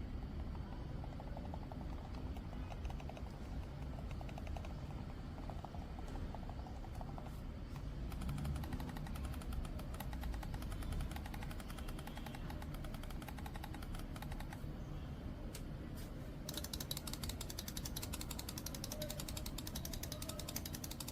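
Kailh square silent mouse micro switches clicking in fast repeated presses, the clicks growing denser and sharper about three-quarters of the way through, over a low steady hum.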